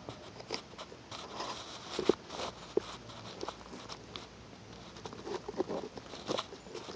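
A slug rasping and chewing at a mushroom's gills: irregular soft clicks and crackles, loudest about two seconds in.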